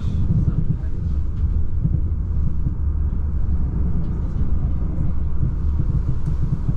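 Steady low rumble of a moving Talgo passenger train, heard from inside the carriage, with a few faint light ticks.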